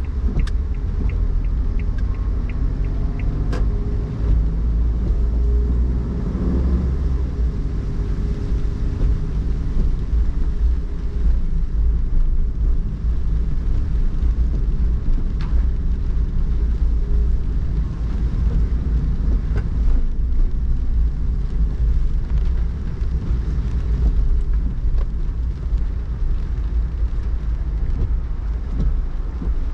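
Steady low rumble of a car driving on wet city streets, heard from inside the cabin, with tyre and rain noise. A quick run of high ticks sounds in the first second or two.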